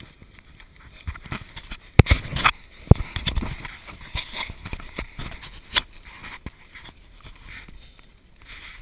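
A runner's footsteps on a dirt trail, an uneven run of knocks and scuffs, with rubbing and knocking from the jostled body-worn camera. A few sharp thumps about two to three seconds in are the loudest.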